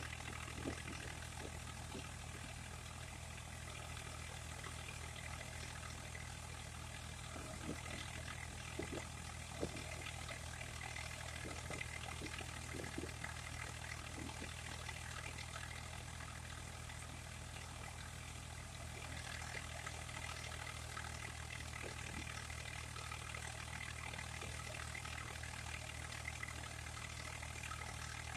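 Swaraj 744 FE tractor's three-cylinder diesel engine running steadily as it drives a tractor-powered threshing machine being fed with crop, one continuous even drone, with a few brief knocks.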